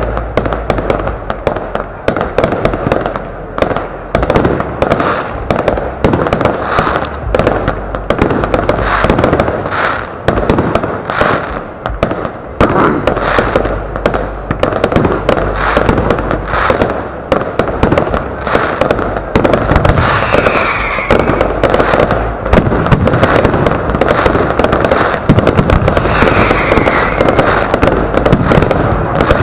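Large category 4 aerial firework shells going off in a dense, continuous barrage: launch thumps and bursting shells several times a second, with crackle between them. A short falling whistle cuts through twice in the second half.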